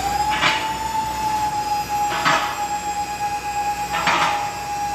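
Rotary MC75-FLEXMAX mobile column lifts raising a pickup: the lift's power unit starts up with a whine that rises slightly in pitch and then holds steady. Over it comes a short clack about every two seconds, three times, as the columns climb past their mechanical safety-lock positions.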